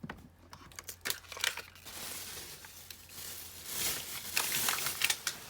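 Thin plastic wrapper crinkling and rustling as it is handled and crumpled, with a few sharp clicks in the first two seconds and a denser spell of crinkling about four seconds in.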